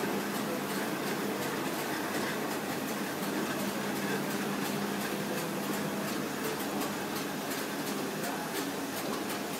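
Komori Lithrone LS 529+C five-colour sheetfed offset press with coating unit running: a steady mechanical whir and low hum with faint, evenly repeating ticks.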